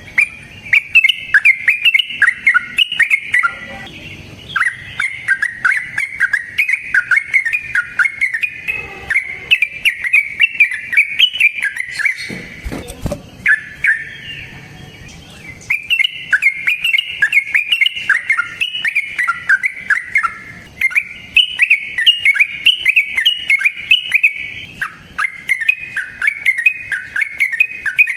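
Yellow-vented bulbul (trucukan) singing long runs of quick, chirpy bubbling notes, broken by a few short pauses. A low thump comes near the middle.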